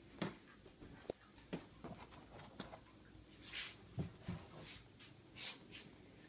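Scattered light clicks and knocks, with two brief hissing swishes about three and a half and five and a half seconds in.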